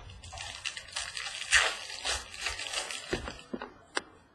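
Trading cards and their plastic holders being handled: a crackly rustle of plastic for about three seconds, then a few sharp clicks near the end.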